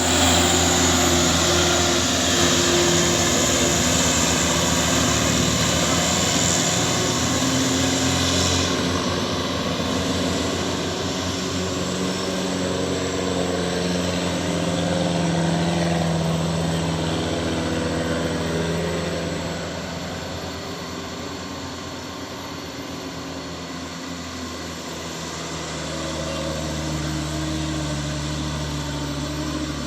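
Truck diesel engine running under way, its pitch slowly rising and falling as it drives. A high hiss fades out about nine seconds in, and the sound grows quieter for a while near the end before it rises again.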